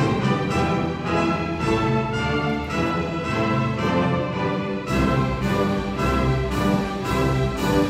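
A full symphony orchestra playing live, with the strings to the fore, heard from the seats of a large hall. About five seconds in, the music shifts to accented chords about twice a second, with a heavier bass.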